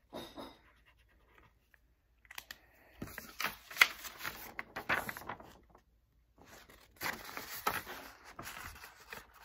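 A sheet of drawing paper rustling and crinkling as it is lifted and handled, in two spells of a few seconds each with sharp crackles, the first starting about two seconds in.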